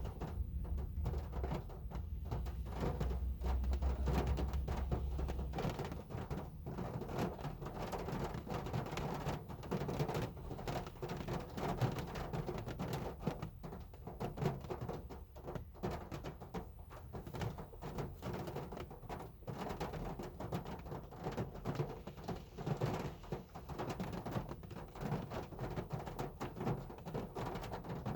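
Heavy rain falling on a car, a dense, irregular patter of individual drops striking the body. A low rumble sits underneath for the first five seconds or so, then fades out.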